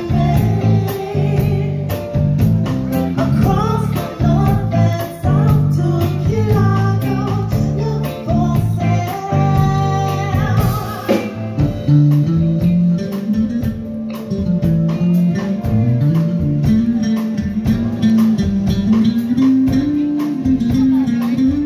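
Live band playing: a woman singing over electric bass, keyboard and drums. About halfway through, the singing gives way and the electric bass line comes to the fore.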